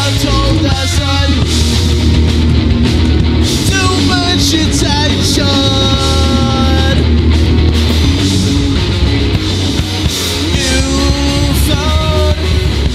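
Live rock band playing loud and fast, with electric guitar, bass, drums and singing, heard as a direct mixing-desk feed.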